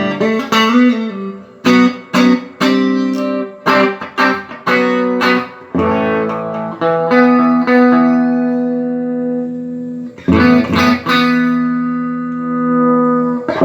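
Electric guitar played through a Mesa Boogie JP-2C amplifier, working again after a repair to a broken slider pot shaft. It opens with a run of quickly struck notes and chords, then moves to longer notes and chords left ringing.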